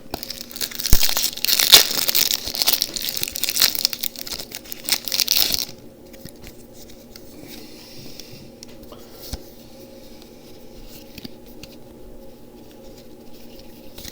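A foil Pokémon TCG booster pack wrapper being torn open, with loud crinkling and tearing for about six seconds. It then gives way to quieter rustling as the pack and cards are handled.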